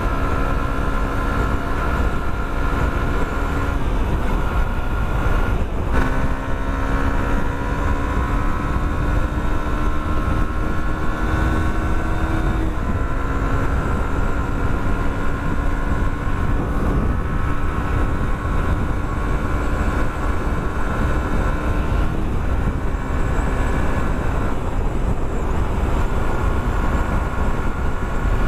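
Yamaha R15 v2's single-cylinder engine running at road speed. Its pitch climbs slowly and drops back a few times as the throttle and gears change, under a heavy rush of wind on the microphone.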